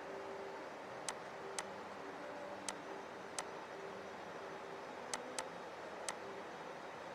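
Faint steady whir of a laptop running, its CPU cooling fan turning, with seven sharp clicks at irregular intervals.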